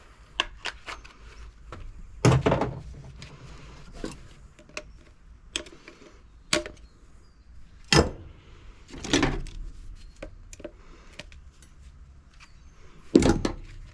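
Scrap parts being handled and dropped: scattered light clicks and several heavier knocks and thunks, the loudest about two seconds in, around eight and nine seconds, and just before the end.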